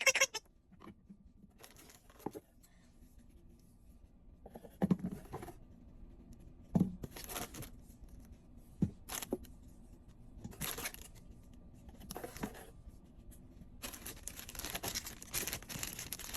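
Dog-toy packaging being torn and cut open: a series of short tearing and rustling bursts with a few knocks, then a longer stretch of rustling near the end.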